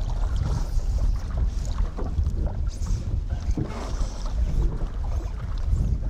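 Wind buffeting the microphone in a steady, uneven rumble, over river water lapping around a drift boat, with scattered small knocks and splashes.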